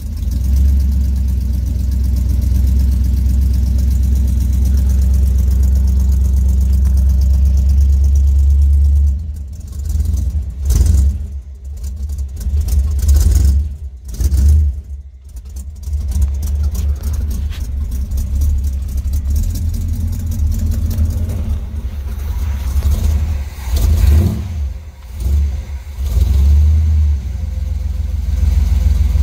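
1977 Chevy C-10's 454 cubic-inch big-block V8 running at idle, a deep steady rumble, with the sound swelling and dipping irregularly several times in the middle and again later on.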